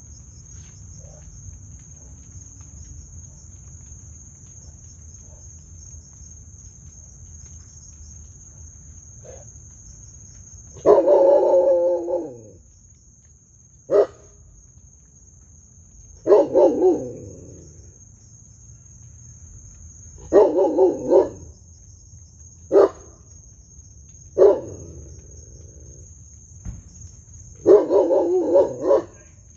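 A dog barking in seven separate bouts, some a single bark and some a quick run of several, over a steady high chirring of crickets.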